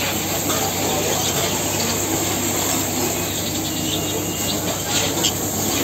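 Busy market hubbub: a steady wash of crowd noise and indistinct distant voices, with a few faint high chirps.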